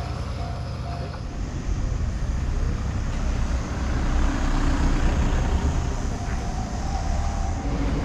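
Low, steady rumble of a vehicle in motion, swelling slightly in the middle, with a faint steady hum over it.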